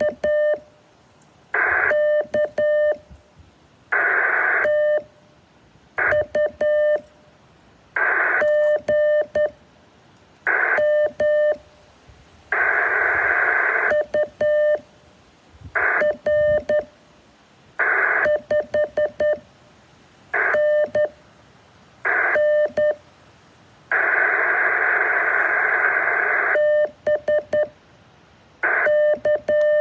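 Morse code sent as a keyed tone of about 600 Hz, short dits and longer dahs in quick groups, alternating with loud bursts of hiss. The pattern repeats roughly every two seconds, with two longer stretches of hiss.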